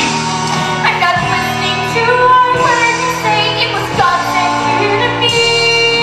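A young woman singing a musical-theatre song over sustained instrumental accompaniment.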